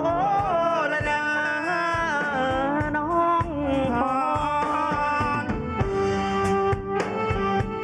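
Live band music: a gliding lead melody over a steady drum beat, with sharper drum hits in the second half, leading into a Thai song.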